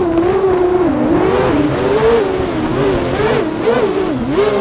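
FPV racing quadcopter's Hobbywing X-Rotor brushless motors and propellers whining, heard through the onboard camera. The pitch swings quickly up and down with the pilot's throttle changes.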